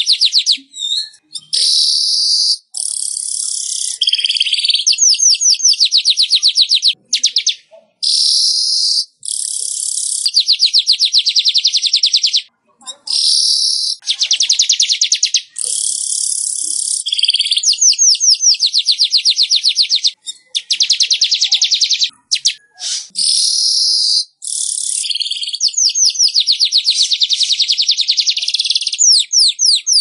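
Weaver (burung manyar) song, loud and repeated. Fast runs of dry ticking notes, about ten a second, alternate with wheezy buzzing stretches, in phrases broken by short pauses.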